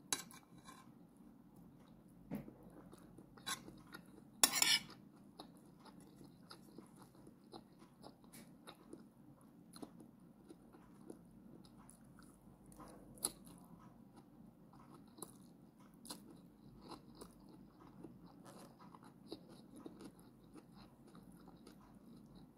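Close-up chewing and mouth sounds of someone eating rice with sautéed bitter melon, with scattered sharp clicks of a metal spoon against a glass plate, the loudest about four and a half seconds in.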